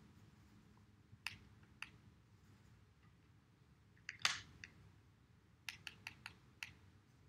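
Faint clicks and taps of a paintbrush working in a plastic watercolor palette, picking up brown paint from its pan and mixing it in the lid. Two light taps come in the first two seconds, a louder click about four seconds in, and a quick run of five or six taps near the end.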